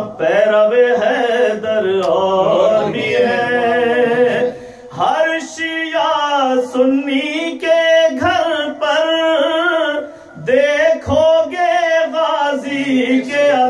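A man's solo voice chanting Urdu verse melodically, unaccompanied, holding long notes that waver. It breaks off briefly for breath about five and ten seconds in.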